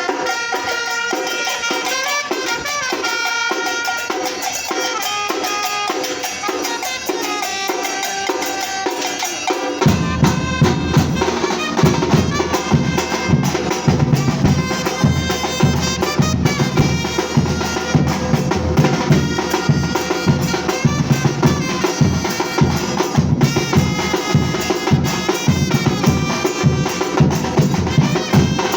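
Batucada drum group playing. For the first ten seconds a melodic tune carries over light percussion; then the bass drums and full drum section come in together, loud, in a fast steady groove.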